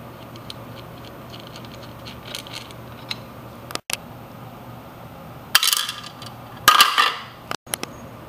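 Small metal engine parts dropped into a plastic parts tray, clattering twice with a short metallic ring, after a few seconds of light clicking as a part is unscrewed by hand.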